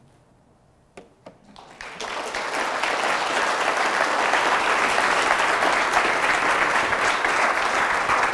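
Audience applauding: a few first claps about a second in, then the whole room joins and the applause holds steady.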